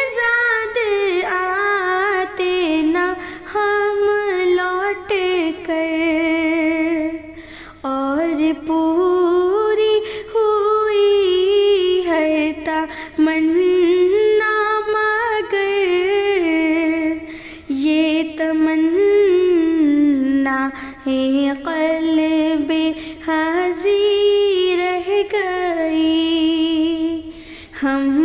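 A female voice singing a naat unaccompanied, in long, drawn-out wavering phrases with short breaths between them.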